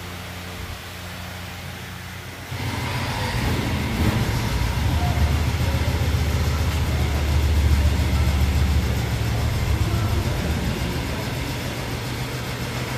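Diesel tractor engine of a Dongyang 5240 running; about two and a half seconds in it gets clearly louder and heavier, strongest in the middle, then eases a little.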